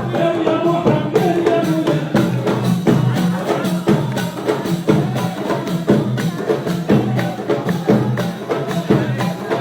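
Moroccan wedding music: a steady beat on hand drums and tambourine under a melody.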